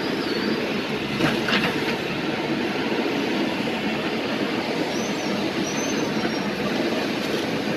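JCB backhoe loader's diesel engine running steadily under load as the backhoe arm drags its bucket through cut tree branches, with a couple of knocks about a second and a half in and thin high squeaks near the middle.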